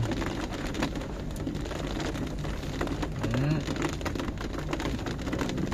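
Rain hitting the car's roof and windshield, heard from inside the cabin as a dense patter of fine drops, over the low steady hum of the engine.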